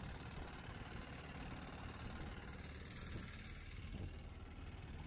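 Motorboat's outboard engine running steadily, mixed with wind and water noise; the sound thins out in its upper range about four seconds in.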